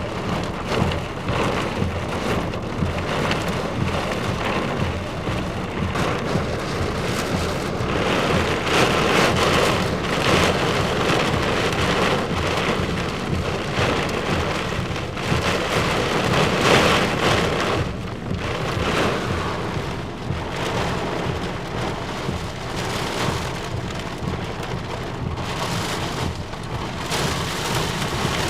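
Torrential rain pouring down in a thunderstorm, surging heavier a few times and easing somewhat in the last third.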